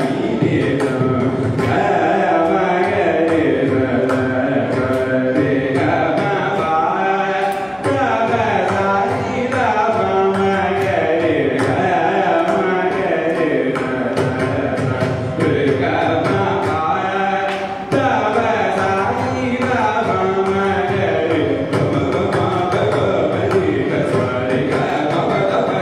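Carnatic classical music: a male vocalist singing with ornamented gliding phrases, the violin following his melody and the mridangam keeping a steady pattern of strokes.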